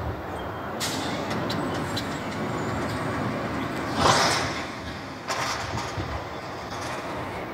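Heil Half Pack Odyssey front-loader garbage truck running steadily while its forks hoist a dumpster over the cab, with a loud burst of noise about four seconds in as the container is tipped and a smaller one a second later.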